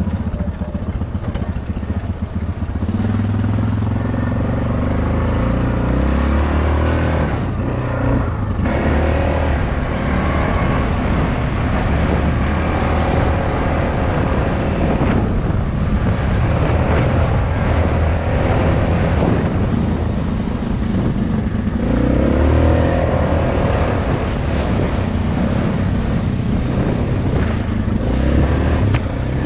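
Dirt bike engine running under throttle while the bike is ridden, its pitch rising and falling again and again as the rider opens and closes the throttle.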